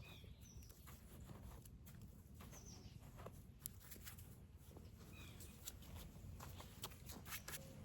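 Near silence outdoors: a faint low rumble with a few distant bird chirps and scattered faint ticks and rustles, more of them near the end.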